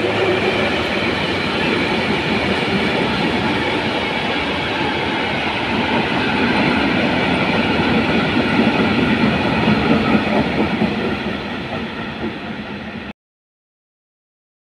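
Works train rolling past: a hauled Plasser & Theurer Duomatic 09-32 CSM track tamping machine followed by hopper wagons, with steady wheel-on-rail rolling noise and clickety-clack. The noise eases slightly and then cuts off suddenly near the end.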